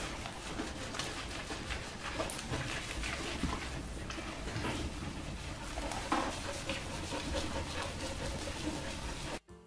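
A Hungarian Puli panting in a grooming tub while gloved hands scrub shampoo lather into its wet coat, a steady wet rubbing noise with a few faint clicks.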